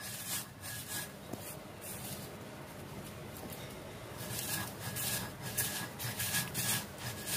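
Stone roller rubbed back and forth on a sil-pata grinding stone, crushing dried shrimp with chili, garlic and onion into a paste: repeated gritty scraping strokes. The strokes are strongest in the first second and again through the last three seconds, with softer rubbing between.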